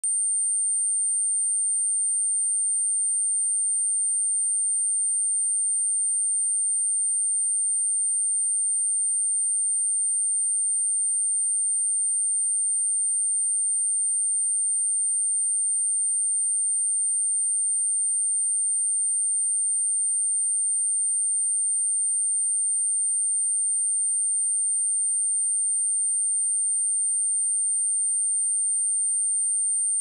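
A continuous 8897 Hz pure sine-wave test tone, steady and unchanging: a high-pitched electronic whistle of the kind used to test speakers or to shake water and dust out of a phone speaker.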